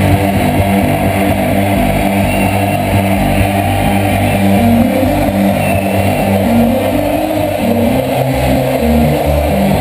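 Loud electronic dance music from a festival sound system, heard from within the crowd, with a heavy bassline stepping between notes several times a second.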